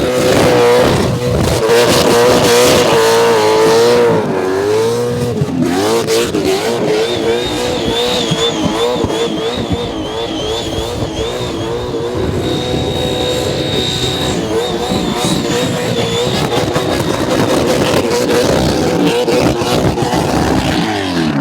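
Supercharged 427 small-block Chevrolet V8 in a VH Commodore held at high revs during a burnout, the revs wavering up and down with a brief dip about five seconds in.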